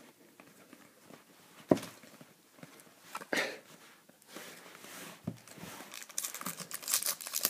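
Baseball trading cards being shuffled and handled, with a few sharp clicks, the loudest about two seconds in. From about six seconds in, a foil card pack wrapper crinkles steadily as it is picked up and handled.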